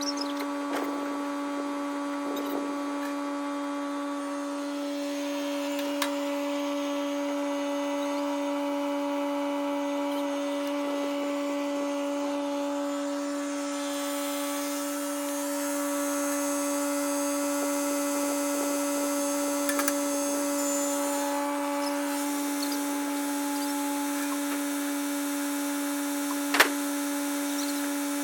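Kubota compact tractor engine running steadily at constant speed, a level hum with a strong whine, with one sharp knock near the end.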